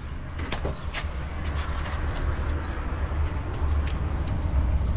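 Chinese diesel parking heater running, its exhaust under the van giving a steady low rumble, with a few light clicks scattered through.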